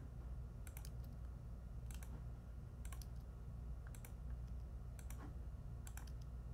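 Faint clicks of a computer mouse and keyboard, mostly in close pairs about once a second, over a low steady hum.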